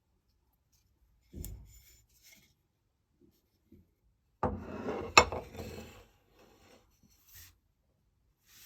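A few separate scraping and rubbing strokes on wood, the longest about half way through, with one sharp click inside it.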